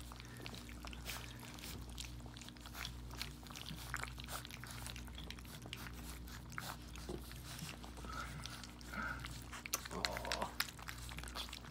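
Several young puppies lapping and slurping gruel from a stainless steel feeding pan, a steady stream of quick wet smacks and clicks. Two short squeaky sounds come about two-thirds of the way through.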